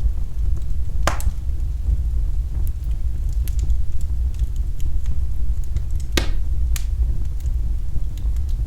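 Fire burning in a fireplace: a steady low rumble with scattered crackling, and sharp pops about a second in and twice around six to seven seconds in.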